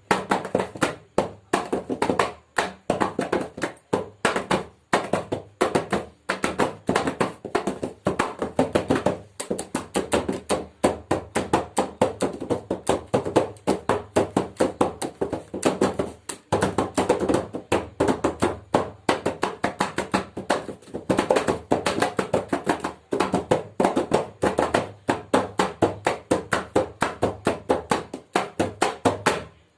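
Mridang, a double-headed Indian barrel drum, played with the hands in rapid strokes, several a second, with a few brief pauses.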